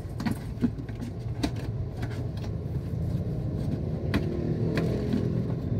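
A full-face motorcycle helmet and its cardboard box being handled, making scattered short clicks and knocks, over a steady low rumble.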